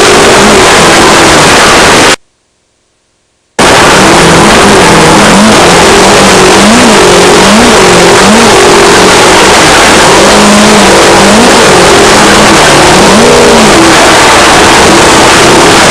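Off-road race car engine, heard from on board, its pitch rising and falling again and again as the throttle comes on and off, under a loud rushing noise. The sound is very loud and cuts out completely for about a second and a half, starting about two seconds in.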